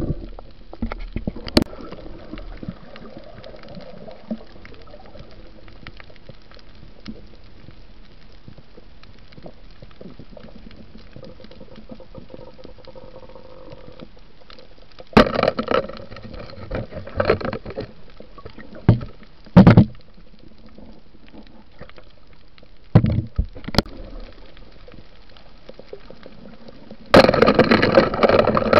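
Underwater noise picked up by a camera in a waterproof housing during a night dive: a steady low hiss, broken by several short loud bursts of water rushing or bubbling, and a longer loud stretch of it near the end.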